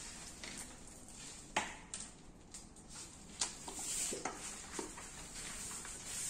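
A few light clicks and knocks at irregular moments over a faint hiss: hands handling a rotary polisher, its foam pad and a bottle of polish while the machine is switched off.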